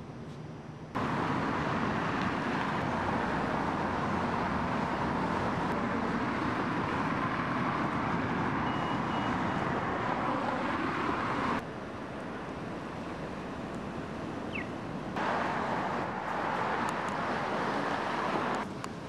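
City street traffic noise, a steady rush of passing vehicles, chopped by hard edits: the level jumps abruptly several times, about a second in, around twelve seconds, around fifteen seconds and near the end, as one street recording cuts to another.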